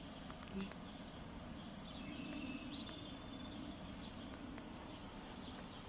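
Quiet outdoor ambience: a faint, steady low background noise with faint high bird chirps, mostly in the first half.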